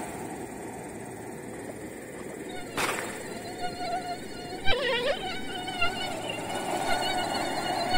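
Mosquitoes whining in flight close to the microphone: a thin, wavering hum that comes in about halfway through and carries on, dipping in pitch once. A single sharp click about three seconds in.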